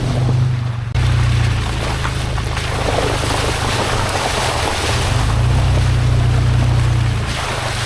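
A vehicle driving: a steady low engine drone under a wash of road and wind noise, swelling a little about a second in and again in the second half.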